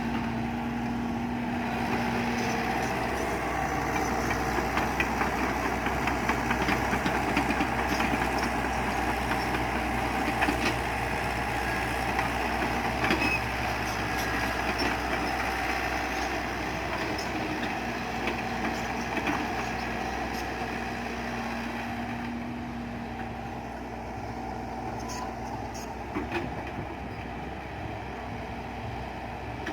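Excavator engine running steadily, with scattered clicks and knocks, a little quieter in the last third.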